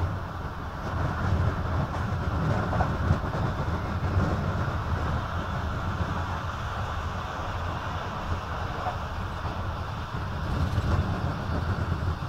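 Passenger train running at speed, heard from inside the carriage: a steady low rumble of wheels on the rails.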